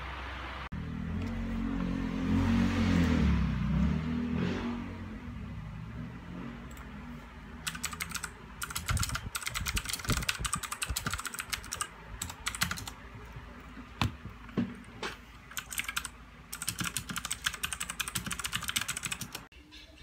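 Rapid typing on a compact white backlit mechanical keyboard, runs of dense key clicks with short pauses, starting about eight seconds in. Before it, a low rumble swells and fades over the first few seconds.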